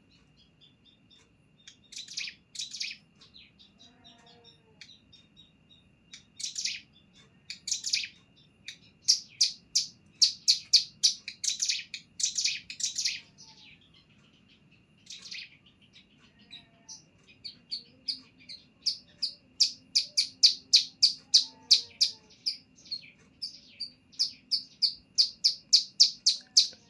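Hill prinia (cigun) singing: rapid series of sharp, high notes in bursts separated by short pauses, building to a long, fast run of repeated notes in the second half. A faint steady high tone sits underneath throughout.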